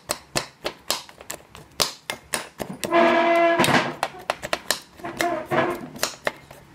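Metal spoon clinking and scraping against a ceramic bowl while mixing ice cream with crushed Oreo cookies: repeated sharp clicks, about three to four a second. A short pitched tone, the loudest sound, comes just after three seconds in, and a fainter one near five seconds.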